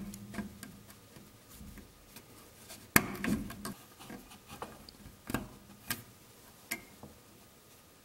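Small sharp plastic clicks and ticks as a white multi-pin wire-to-board connector is squeezed at its latch and worked out of its socket on a TV power-supply board, with pliers and a thin metal tool knocking against it. There are a handful of clicks, the loudest about three seconds in.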